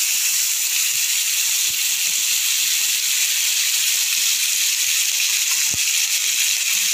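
Wet ground onion-tomato paste sizzling loudly in hot oil in a kadai, a steady high hiss as the water in the paste boils off in the oil.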